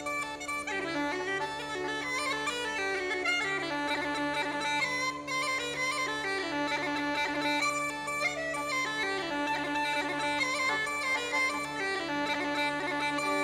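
Bagpipes playing a melody on the chanter over steady, unchanging drones.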